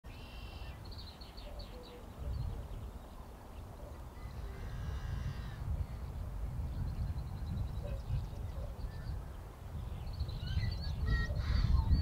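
Wind buffeting the microphone in a steady low rumble, with scattered high bird chirps and short trills over it, busier near the end.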